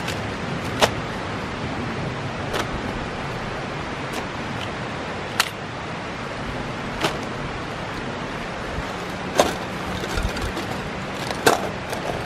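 Camping gear in plastic bags being taken out of a duffel bag and set down on a tarp: short crinkles and taps every second or two, over a steady hiss of wind.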